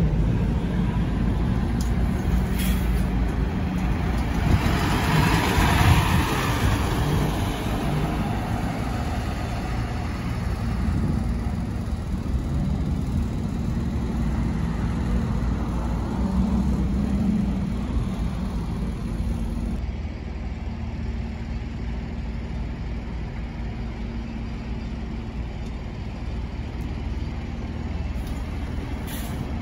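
Transperth city buses driving slowly through a station bus stop, engines running steadily with a low drone. The sound swells about five seconds in as a bus passes close.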